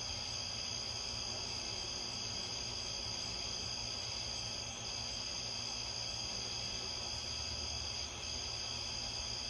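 Continuous high-pitched insect trill, broken off briefly twice, over a low steady rumble.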